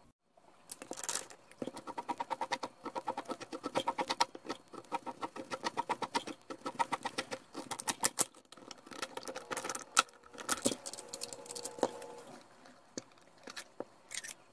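Spin-on oil filter's metal can being turned by hand in an oil filter cutter, the cutting wheel opening it with rapid, even clicking several times a second, in stretches with short pauses. A few scattered clicks follow near the end.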